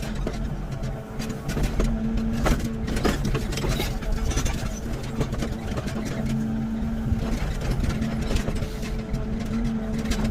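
Hydraulic excavator's diesel engine running under work, a steady drone with a held hum, broken by scattered clanks and knocks.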